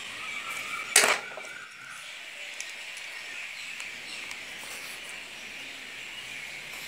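Steady hiss with one sharp tap about a second in and a few faint ticks, from a pencil and compass being handled on a notebook page.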